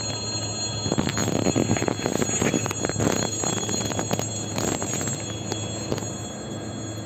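Ivolga electric train pulling in alongside the platform and slowing, its wheels clicking and knocking over the rail joints in a quick irregular run from about a second in until about six seconds in, thinning out as it comes to a stop. A steady high tone runs underneath.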